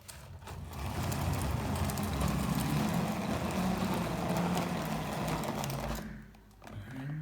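Battery-powered RC toy car's electric motor whirring under power, with the rattle of its drivetrain and wheels. It starts just after the beginning and cuts off about six seconds in.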